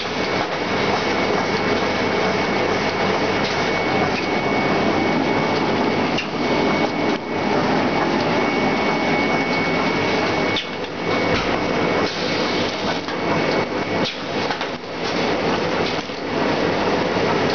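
Soft-pack facial tissue folding and packing machines running: a dense, continuous mechanical clatter with scattered clicks, and a thin steady high tone that fades out about fourteen seconds in.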